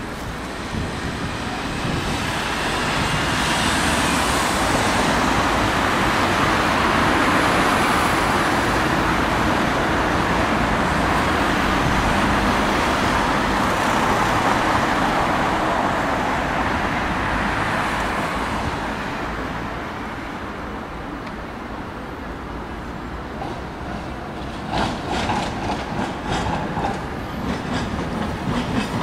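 Street traffic passing close, a broad rushing noise that builds and fades over about fifteen seconds. Then a tram's wheels click over rail joints and points in a quick irregular run, with a faint wheel squeal starting near the end.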